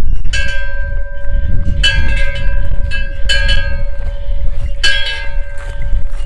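A bell-like chime struck about every second and a half, each note ringing on, over a steady low rumble.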